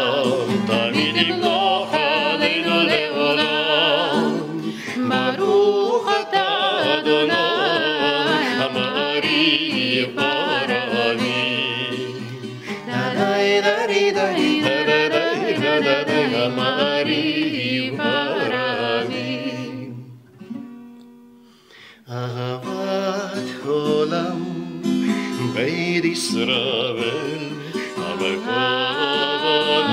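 A woman and a man singing a Hebrew prayer melody to a strummed twelve-string acoustic guitar, with a short pause about two-thirds of the way through before the singing resumes.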